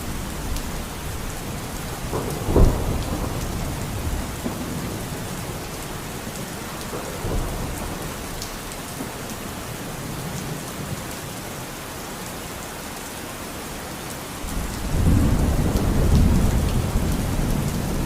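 Steady rain falling, with scattered drop ticks. A sharp low thud comes about two and a half seconds in, and a longer, louder low rumble fills the last few seconds.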